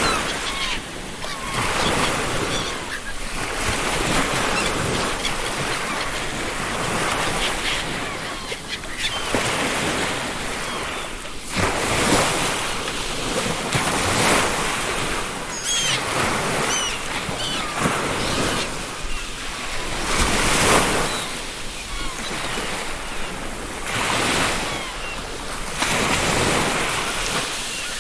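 Ocean waves breaking on a beach, the surf swelling and receding every few seconds. Seagulls call briefly a few times near the middle.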